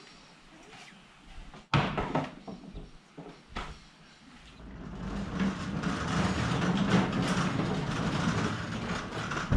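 Wooden knocks as the hinged side wing of a home-made mitre-saw table is folded down: a sharp bang about two seconds in and a softer knock near four seconds. Then a rising rumble as the caster-wheeled table is rolled over a concrete floor, ending in another knock.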